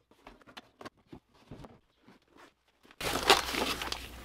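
Zipper on a fabric tool bag being pulled open, with the rustle of the bag and of paper inserts being handled; the handling gets louder and busier about three seconds in.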